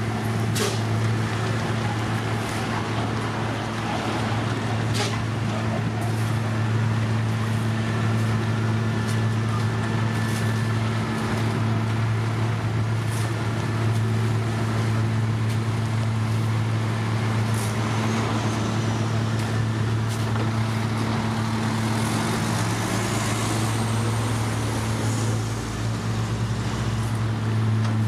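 Diesel engines of a paver and a tipping dump truck running steadily, a constant low hum, with a few sharp clicks. Late on, a second engine note rises and falls in pitch.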